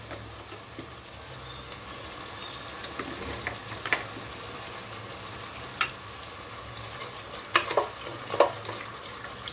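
Mutton pieces frying with a steady sizzle in hot oil in a pressure cooker, the ginger-garlic paste just added. A wooden spoon stirs them, knocking and scraping against the pot a few times.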